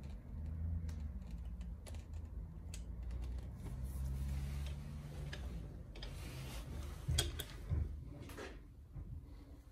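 Caulking gun being squeezed and handled while sealant is run into a foam pipe-insulation joint: scattered small clicks and handling rustle, with two louder knocks a little after seven seconds in, over a steady low hum.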